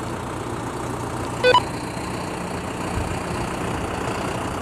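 Tractor engine running steadily at low revs as the front loader is driven in. About a second and a half in comes one short high-pitched squeak or beep.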